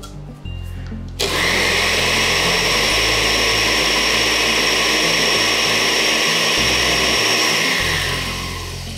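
Countertop blender switched on about a second in and running steadily with a high whine, liquefying watermelon chunks and a little water into juice, then winding down near the end.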